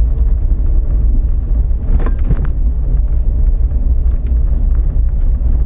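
Steady low rumble of an off-road vehicle's engine and tyres on a gravel track, heard from inside the cab, with a couple of brief knocks or rattles about two seconds in.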